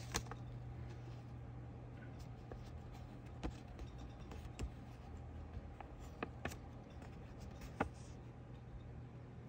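Paper dollar bills handled one by one: a few faint, scattered ticks and rustles over a steady low hum.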